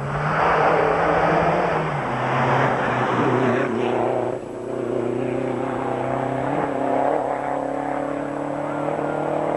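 Rally car engine at hard throttle as the car passes through a bend and accelerates away. Its note is loudest in the first few seconds, breaks briefly about four seconds in, then runs on steadily a little quieter as the car pulls away.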